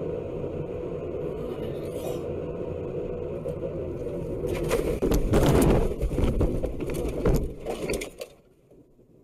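Car cabin road and engine noise. About five seconds in it gives way to loud scraping and crashing with repeated knocks, lasting about three seconds, as the car swerves off the road and ploughs into a brushy ditch. The noise then drops away.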